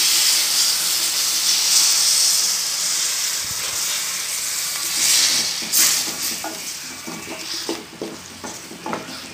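Water poured into a hot pan of oil-fried masala with brinjal, onion and tomato, sizzling loudly at once and slowly dying down. In the second half a spatula scrapes and stirs against the metal pan as the masala loosens into gravy.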